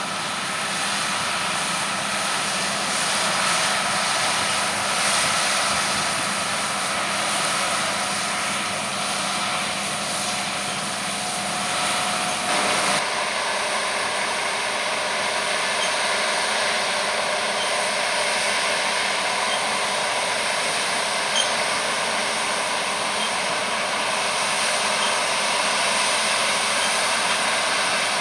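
Harvest machinery running steadily, with the engine and threshing noise of a combine harvester or a carting tractor at work. The sound changes abruptly about 13 seconds in, to a different mix of steady tones.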